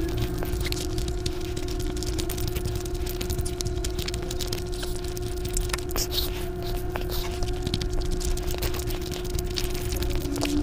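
Close-up mukbang eating sounds: a hand squishing and mixing oily biryani rice and curry, with wet chewing, as a run of small sticky clicks and crackles. A steady low tone holds underneath.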